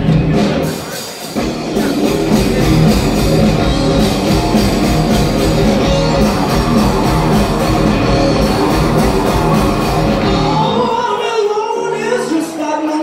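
Live rock band playing loud: electric guitars, keyboard and drum kit. The bass and drums drop out about two seconds before the end while higher parts carry on.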